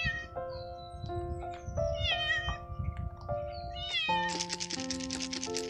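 A cat meowing three times in short, bending calls over background music of sustained notes. About four seconds in, a fast rhythmic hiss joins in and becomes the loudest sound.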